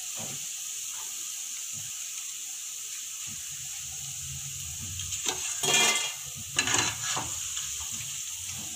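Oil sizzling steadily as battered baby corn deep-fries golden in a kadai. A metal slotted spoon scrapes and clinks against the pan twice, a little after halfway, as the fried pieces are lifted out.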